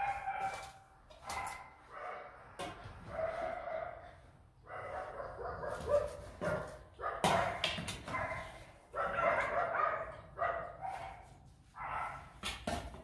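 Two-month-old Rottweiler puppies barking and whining over and over, impatient to be fed. A few sharp clinks of a steel spoon against stainless-steel bowls come through between the calls.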